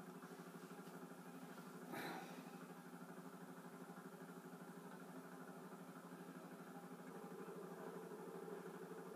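Faint steady engine-like drone with a fast even pulse, and a brief rush of noise about two seconds in.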